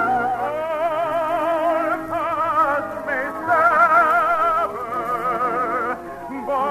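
Operatic singing with orchestral accompaniment: voices with a wide vibrato move through sustained phrases that change pitch every second or two, over steadier instrumental notes below.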